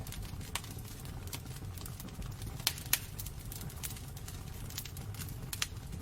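Wood fire burning in a fireplace: irregular sharp crackles and pops over a steady low rumble of the flames, with a pair of louder pops a little before the middle.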